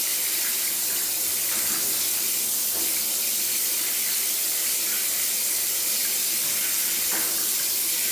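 Shower running steadily: a constant hiss of water spray into the bath.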